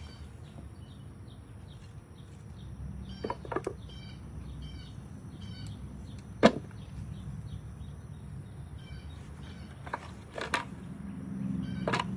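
A few sharp knocks, the loudest about halfway, over faint high chirping that repeats a few times a second.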